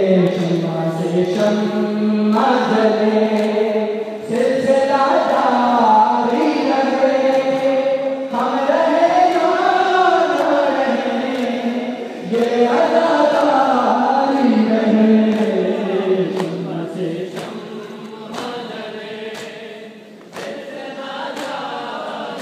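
A group of men chanting a noha lament in chorus, crossed by a steady rhythm of sharp hand slaps on bare chests (matam).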